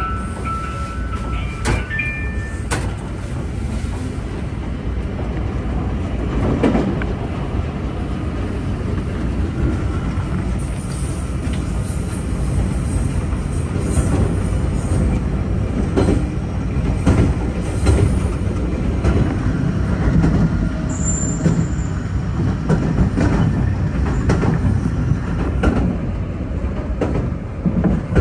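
A train running at speed, heard from inside the carriage: a steady low rumble of wheels on rail, with clicks and thumps now and then as the wheels cross rail joints.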